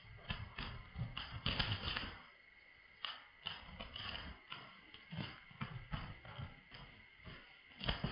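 Two junglefowl roosters scuffling on dry leaf litter: irregular clicks and soft thumps in clusters, the loudest bunch about a second and a half in and another just before the end.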